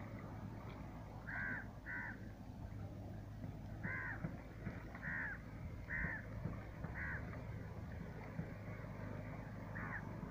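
A crow cawing repeatedly: about seven short, harsh caws at irregular intervals, over a steady low background noise.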